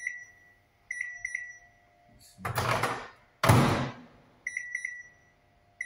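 Microwave oven being loaded and set: short runs of high keypad beeps, with two loud noisy bumps of the door in the middle, the second and louder one starting suddenly. A faint steady hum runs underneath.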